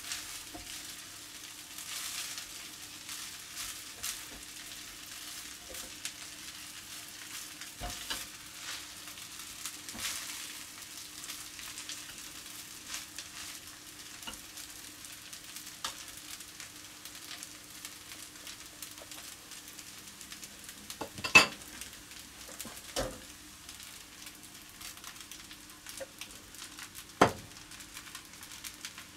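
Rice and spiced onions sizzling gently in a frying pan as a spatula stirs and turns them, scraping through the rice. There are a few sharp knocks of the spatula against the pan, the loudest about two-thirds of the way through and another near the end.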